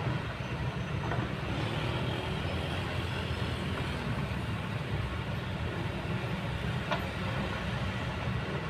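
Kobelco hydraulic excavator's diesel engine running steadily under load as the arm and bucket work, with a single sharp metallic clank near the end.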